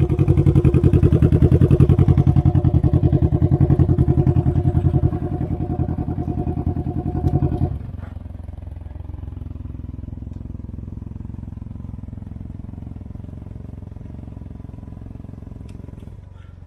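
Can-Am Ryker engine and exhaust running up close with a fast, even pulsing, loud for the first several seconds. At about eight seconds it drops suddenly to a quieter, steady running that continues.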